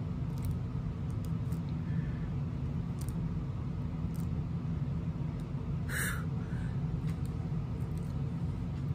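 Diamond-painting drill pen picking up and pressing small resin drills onto a coaster: faint, sparse light clicks over a steady low hum, with one brief sharper sound about six seconds in.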